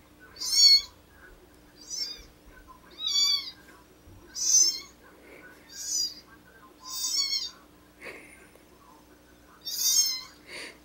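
A kitten mewing over and over, about seven high-pitched mews roughly a second apart, played back from a video through a computer or phone speaker.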